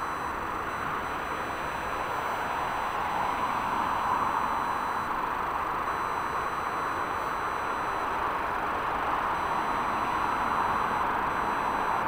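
Jet airliner engine noise, a steady rush that grows slightly louder.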